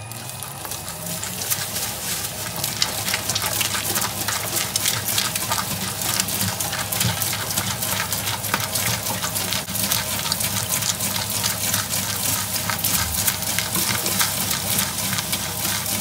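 Electric slime mixer running with a steady motor hum while it churns a batch of crunch slime with foam beads, the slime crackling and squelching without a break. It grows louder over the first couple of seconds.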